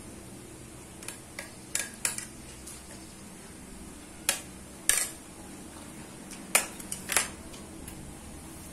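A spoon clinking and scraping against a plate while eating, as a string of sharp, separate clicks at irregular intervals, the loudest a little over halfway through.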